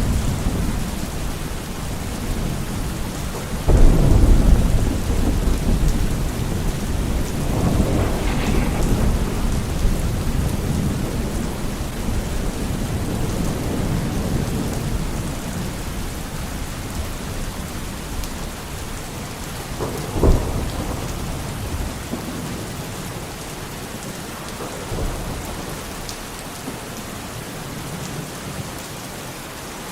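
Steady heavy rain in a thunderstorm. A loud thunderclap about four seconds in rolls on for several seconds with another rumble around eight seconds, a sharp crack comes near twenty seconds and a fainter one a few seconds later, and the storm eases a little toward the end.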